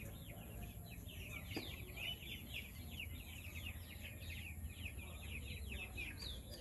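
Many chicks peeping together: a continuous chorus of short, high, downward-slurred peeps overlapping one another, over a low steady rumble.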